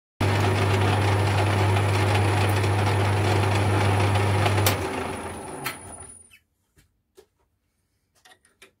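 Metal lathe running with a steady low hum, its chuck turning a small aluminium collar. A little before halfway the motor is switched off and the chuck spins down over about a second and a half, followed by a few light clicks as the work is handled.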